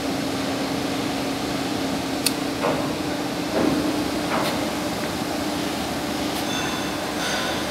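Steady machinery hum, a constant rush with one low steady tone, broken by a few sharp metallic knocks and clinks about two to four and a half seconds in.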